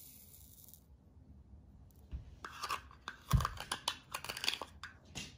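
Salt being spooned and then tipped from a small plastic dish into a hollowed-out raw potato in a plastic tub: a brief hiss at the start, then a run of sharp clicks and crackles from the second second on, with one louder knock a little past the middle.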